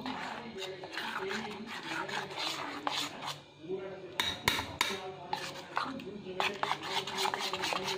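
Metal spoon stirring thick batter in a stainless steel bowl, scraping and clicking against the sides, with a few louder knocks about four seconds in.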